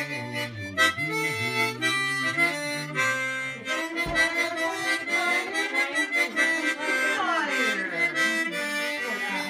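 Harmonica played with the hands cupped around it: a tune of held notes sounding several at once as chords, changing every half second or so, with a few sliding notes near the end.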